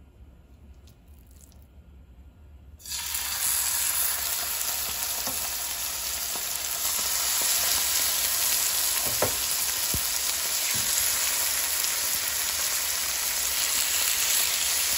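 Seasoned chicken breast fillets sizzling in a little hot oil in a skillet. The sizzle starts suddenly about three seconds in, as the meat goes into the pan, then holds steady, with a couple of faint knocks partway through.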